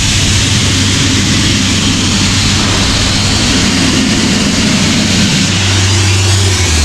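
Compressed-air blowpipe blasting steadily, with the diesel air compressor's engine running underneath as a steady low hum.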